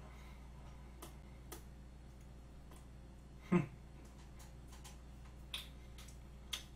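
Faint mouth sounds of eating: sporadic sharp lip smacks and clicks, with one louder smack about three and a half seconds in, over a low steady room hum.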